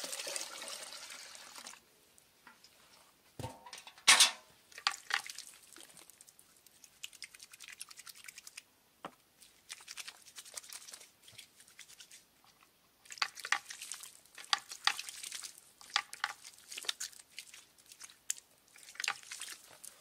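Water and small handling sounds: about two seconds of splashing liquid, then a sharp knock about four seconds in, followed by scattered light clicks and clinks.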